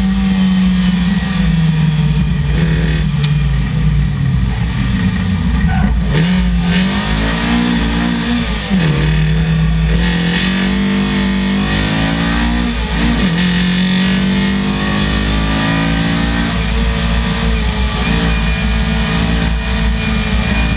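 In-car sound of a Datsun 1200 rally car's Nissan SR20VE four-cylinder engine at race pace. The engine note falls under braking, then climbs twice hard, each climb broken by a brief drop at a gear change, and then runs steadily at high revs.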